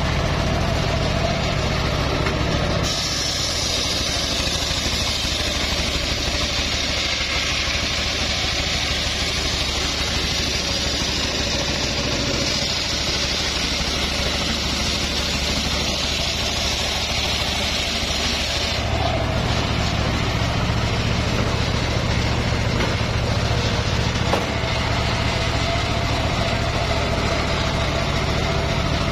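Homemade circular sawmill ripping a log lengthwise: the blade cuts into the wood about three seconds in with a loud, high hissing whine that holds steady until about 19 s in, then the saw runs on free with only its steady low running note.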